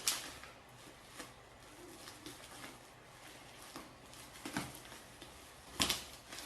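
Parcel packaging being handled: scattered rustles and a few sharp knocks and clatters, the loudest near the end.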